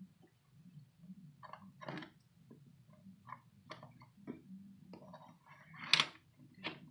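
Scattered faint clicks and taps of small plastic toy figures being moved against a plastic toy table and set by hand, with a louder knock about six seconds in.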